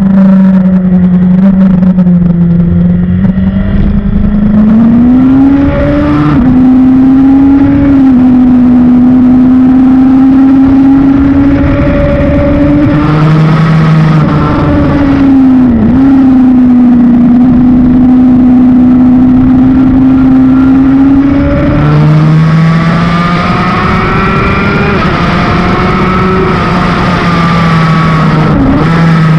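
Honda CBR1000 sportbike's inline-four engine running hard at high revs, its note rising under acceleration and dropping at gear changes and braking several times, with wind rush over the bike.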